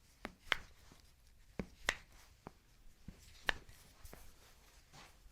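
Toe and ankle joints popping as a chiropractor manipulates the foot: a series of short sharp cracks, the three loudest about half a second, two seconds and three and a half seconds in.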